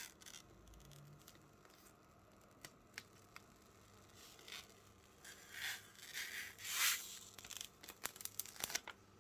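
Protective plastic film being peeled off a PC case's glass side panel: a faint tearing and crinkling, strongest in a few strokes past the middle, with light clicks near the end.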